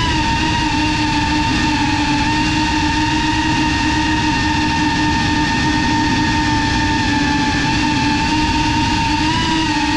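Brushless motors and propellers of a GEPRC Cinelog cinewhoop FPV drone in flight, heard from the GoPro on board: a steady, loud whine with a rushing, rumbling noise of air underneath, the pitch wavering slightly near the end.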